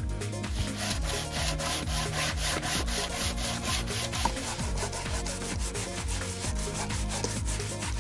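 Sandpaper on a homemade clip-held sanding block rubbed quickly back and forth along a wooden board, in quick, even strokes.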